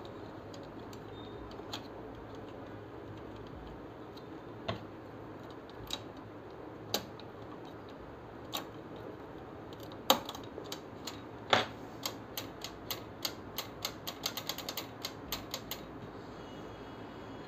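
Light clicks and taps of a small tool against the plastic and metal parts inside an HP LaserJet M1005 MFP laser printer as its paper sensor is cleaned and refitted, single clicks every second or two, then a quick run of many light clicks over the last few seconds, over a low steady hum.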